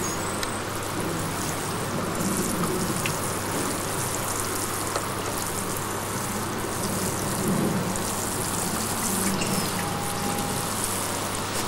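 Water sprinkling steadily from a watering can onto freshly sown garden soil, an even hiss.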